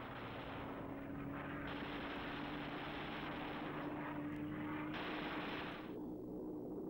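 Aircraft engines droning steadily over a rushing noise. The rushing changes abruptly a few times and falls away near the end.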